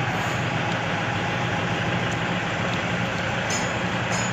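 A machine running steadily: a low motor hum under a dense hiss, with no change in level.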